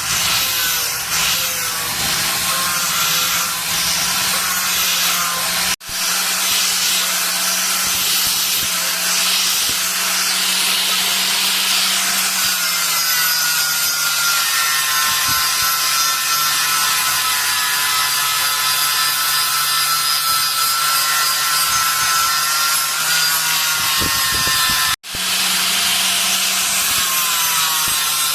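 A power tool running continuously on metal, with a steady motor hum under a loud grinding hiss and a wavering high whine. It cuts out abruptly for an instant twice, about six seconds in and near the end.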